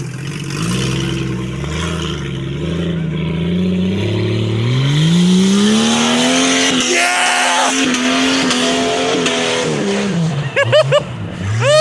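A truck engine is revved up and down in clutch kicks for the first few seconds. It then climbs to a high, held rev with a loud hiss of spinning tyres, and drops off about ten seconds in. Short shouts from onlookers come near the end.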